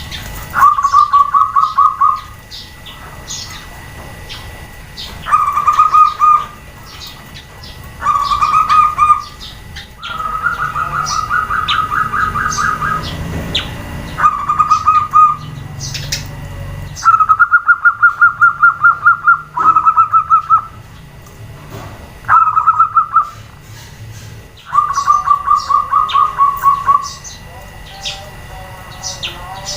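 Zebra doves giving rapid trilling calls in about nine separate bursts of one to two seconds each, some bursts answering one another closely. Short high chirps from other small birds come in between the bursts.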